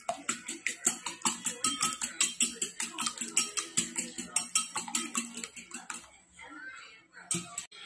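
Wire whisk beating raw eggs in a bowl, the wires clicking against the bowl about seven times a second until about six seconds in, then a couple of last taps near the end.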